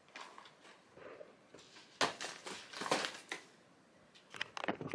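Cardboard product boxes being handled: rustling, scraping and light knocks, loudest from about two to three and a half seconds in, with a few sharp clicks near the end.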